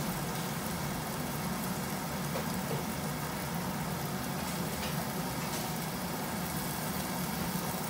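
Steady low hum with an even hiss over it from a gas stovetop in use, as a covered wok cooks on the burner.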